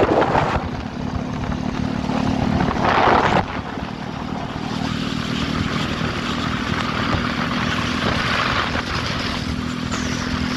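Small motorcycle engine running steadily at road speed, with wind buffeting the microphone in a few louder gusts.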